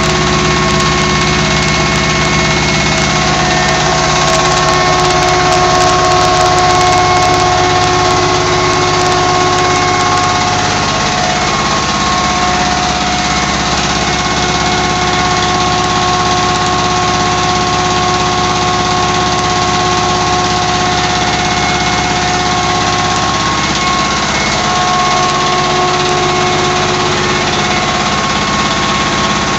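25 HP diesel engine running at full speed, belt-driving an atta chakki flour mill as it grinds wheat into flour: a loud, steady mechanical drone with constant tones.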